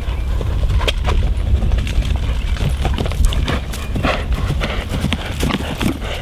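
A horse galloping on grass, its hoofbeats coming in a quick, uneven run of strikes.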